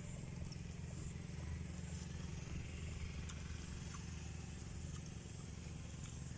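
A steady low hum runs throughout, with faint crunches of someone chewing raw jicama.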